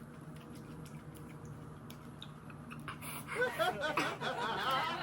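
A low room hum with a few faint clicks, then from about three seconds in a woman's high, wavering, wordless vocal sounds as she reacts to the burning heat of the spicy chilies she is eating.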